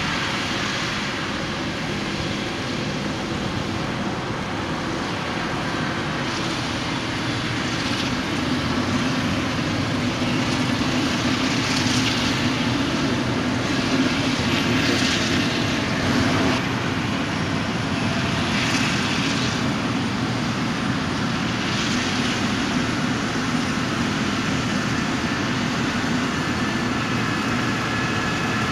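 Claas Jaguar 970 self-propelled forage harvester chopping maize under load, with tractors running alongside: a steady, loud drone of heavy diesel engines and the chopper, a little louder from about a third of the way in.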